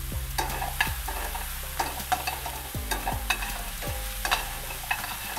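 Diced red onion and minced garlic sizzling in bacon fat in a stainless steel skillet as they are stirred and tossed. A steady frying hiss runs under frequent sharp clicks and scrapes of the utensil against the pan.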